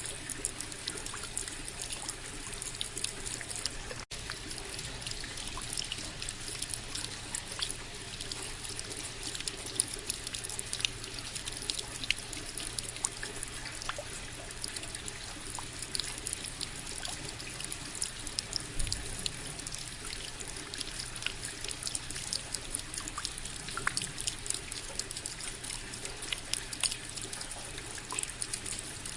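Steady rain: an even hiss of falling water with many small drops ticking through it, and a momentary dropout about four seconds in.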